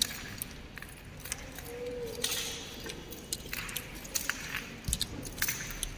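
Scattered light clicks and taps, with a few short swishing sounds about two and three and a half seconds in.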